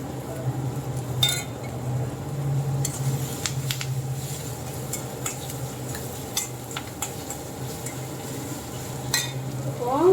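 A utensil stirring onion-tomato masala with ginger-garlic paste as it fries in oil in a kadai: scattered clicks and scrapes of the utensil against the pan over a soft sizzle.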